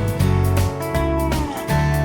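Background country-style music with guitar over a steady bass line, with a few notes sliding in pitch.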